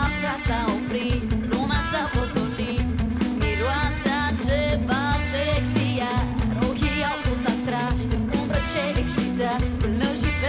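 Live rock band playing: a woman sings a melody into a microphone over electric guitars and a steady drum beat.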